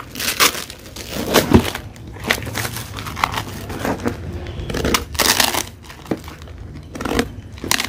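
Wrapping of a taped courier parcel being torn open and crumpled by hand: irregular crackling and rustling with sharper cracks now and then.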